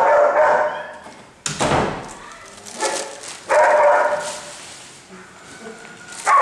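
A dog barking in bursts: once near the start, again about four seconds in, and once more at the end. A single loud thud comes about a second and a half in.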